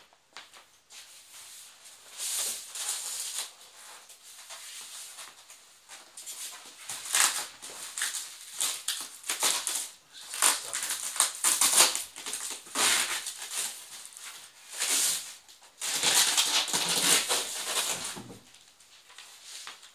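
Plastic wrapping and polystyrene packing being handled while a flat-screen TV is unpacked: irregular crinkling and rustling, sparse at first and busiest near the end.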